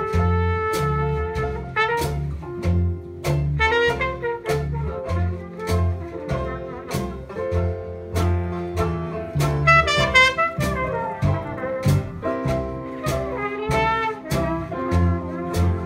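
Traditional New Orleans jazz band playing an instrumental chorus: horn and clarinet lines over a steady two-beats-a-second pulse of string bass, banjo, piano and drums.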